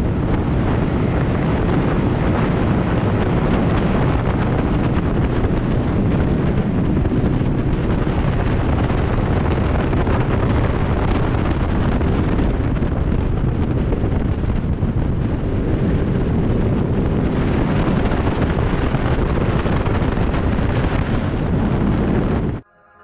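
Wind noise on the microphone of a motorcycle riding at highway speed, over the steady running of the Yamaha MT15's 155 cc single-cylinder engine. The noise cuts off abruptly near the end.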